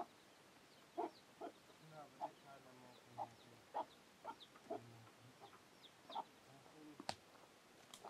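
Hens clucking in short, separate notes, with a chick's faint high peeps between them and a sharp click near the end.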